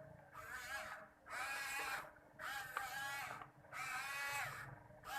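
Small DC gear motor running in repeated bursts of about a second, roughly one a second, its whine rising as each burst starts and falling as it stops, as it works the robot bird's flapping wings.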